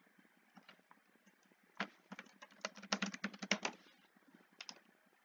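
Typing on a computer keyboard: a quick run of key clicks lasting about two seconds, then a couple of separate clicks near the end.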